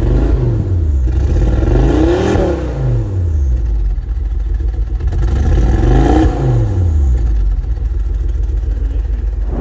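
2006 Ford Focus ST's turbocharged 2.5-litre five-cylinder engine being revved twice, its pitch rising and falling each time. The engine is running poorly; its turbo is broken.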